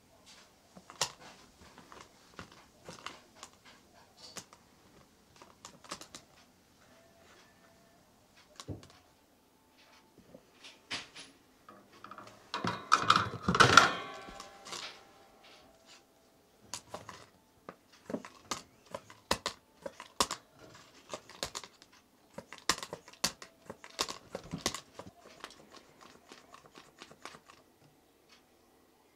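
Scattered clicks, taps and light rattles of a plastic frog toy knocking against a wire pet cage and a floor mat as a cat bats at it, with a louder burst of clattering and rustling about thirteen to fifteen seconds in.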